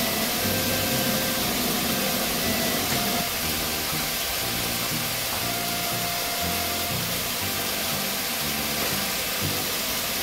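Steady hiss with faint music underneath, its low bass notes changing every half second or so.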